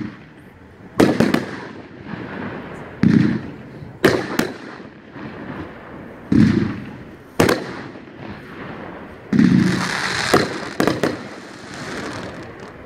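Winda 'Angry Pandas' 500-gram firework cake firing shot after shot, every few seconds. Each shot is a dull thump from the tube and a sharper crack as the shell bursts overhead. Near the end there is a brief stretch of hissing crackle.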